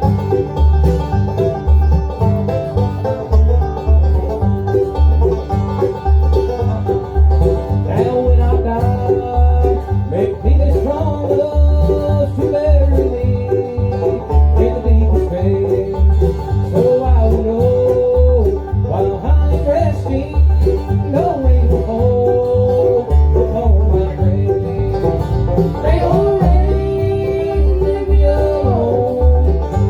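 Bluegrass band playing live, with banjo, mandolin, guitar and bass together. The bass keeps a steady beat of about two notes a second under the melody.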